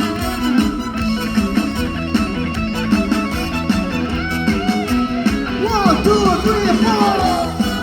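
Live trot band playing an instrumental break, a guitar line over a steady beat.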